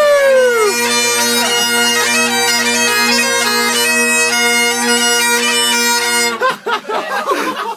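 Bagpipes playing: steady drones under a quick-moving chanter melody, which cut off about six and a half seconds in.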